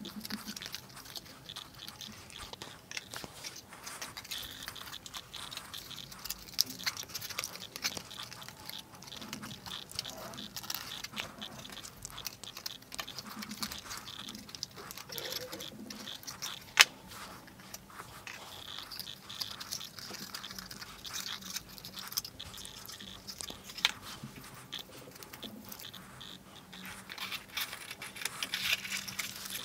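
Cardboard pieces of a board-game marble dispenser being folded and slotted together by hand: irregular scraping, rustling and crunching of cardboard with small clicks, and a sharper snap a little past halfway and another about three quarters of the way through.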